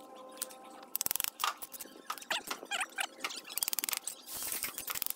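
Steel bricklaying trowel scraping mortar and tapping on clay bricks, with a quick run of sharp taps about a second in. Short high chirps sound between the taps.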